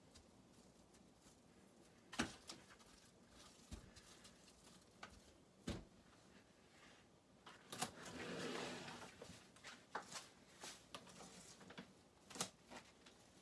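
Kitchen handling sounds: scattered light knocks and clicks as plastic-wrapped chicken breast and hands touch a plastic cutting board and the stainless steel sink and tray. A soft rustle lasting about a second comes a little past the middle.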